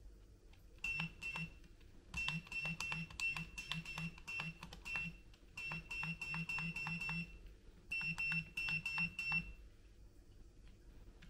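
Sniclo 1/64 Nissan Patrol micro RC crawler sounding short high-pitched electronic pulses with faint clicks as its transmitter is worked. The pulses come about four or five a second, in four runs with short gaps between them.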